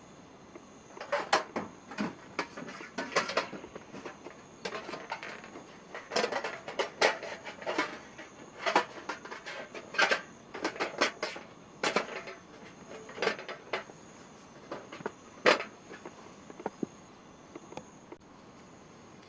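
Irregular clatter, knocks and rattles of camping gear being handled and set down, in uneven bursts with a few sharper knocks, over a faint steady high insect trill.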